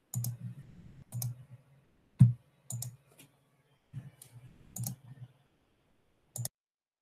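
About eight scattered, irregular clicks and taps of computer keys or a mouse, each with a brief low hum behind it; the loudest comes a little after two seconds in.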